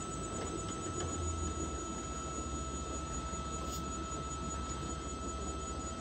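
Hilco electric honey extractor running, its motor giving a steady low hum with a thin high whine as the reel of honey frames spins.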